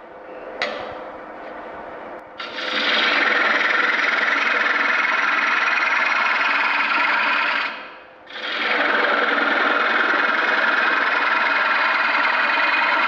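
Superflute bowl gouge with a fingernail grind making a pull cut in wood spinning on a lathe: two long passes of steady cutting hiss, about five seconds each, with a short break about eight seconds in.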